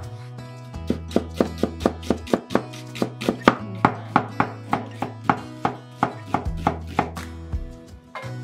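Chef's knife thinly slicing onion on a wooden cutting board: a run of quick, even knife strikes against the board, about three or four a second. Background music plays underneath.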